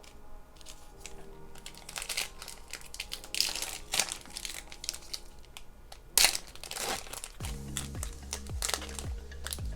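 Plastic-foil wrapper of a trading-card pack crinkling and crackling as it is handled, with a sharp louder crackle about six seconds in. Soft background music comes up in the second half.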